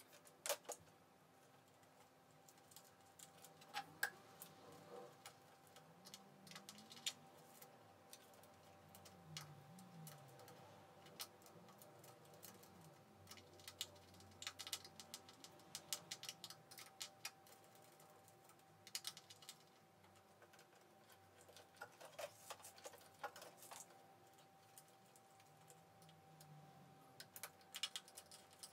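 Faint, scattered small clicks and taps of hands handling electrical cable and a plastic terminal fitting with screw terminals, in a few short clusters, over a faint steady hum.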